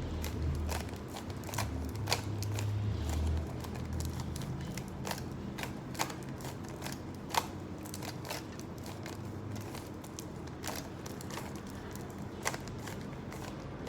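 Rubik's cube being twisted by hand through its last-layer moves: irregular plastic clicks and clacks as the layers turn, a few each second.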